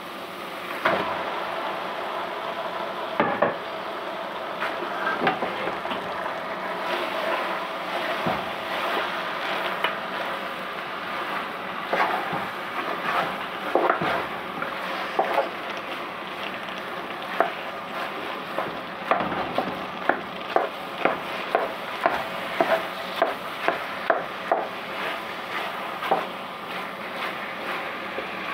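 Chicken mince sizzling in hot oil and onion masala in a non-stick pot as a slotted spatula stirs it, scraping and knocking against the pot. The knocks come irregularly at first and settle into a steady run of about two a second in the second half.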